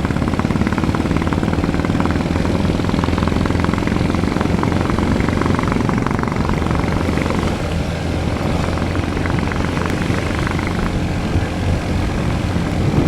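Royal Enfield Bullet's single-cylinder engine running steadily with a fast, even beat as the motorcycle is ridden.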